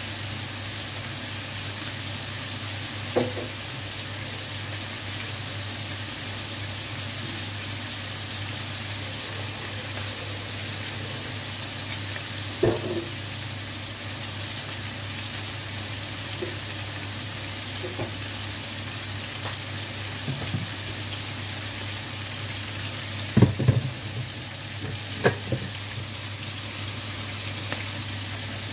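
Chicken pieces frying in hot oil in a wok: a steady sizzle with a few short sharp clicks now and then, several of them close together near the end.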